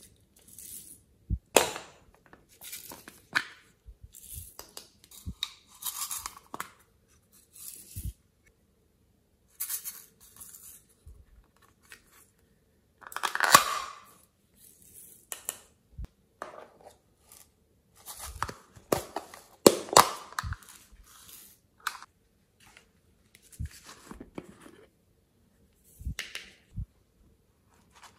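Plastic clay molds and soft clay handled by hand: irregular crinkling and tearing noises with sharp plastic clicks, in scattered bursts.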